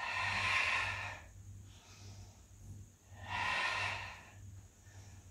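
A woman's forceful breaths out through the mouth, twice, each about a second long and about three seconds apart: exhaling on the effort of each repetition of a lying abdominal exercise with dumbbells.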